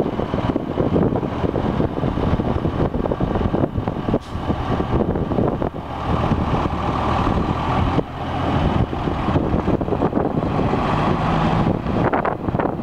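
1998 Freightliner Century truck tractor's diesel engine running steadily as the truck is driven slowly, with wind buffeting the microphone.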